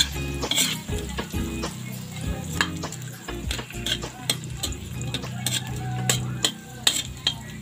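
Metal spatula scraping and tapping against a metal wok in irregular strokes as fried tofu cubes with onion are stirred, over a light sizzle of frying.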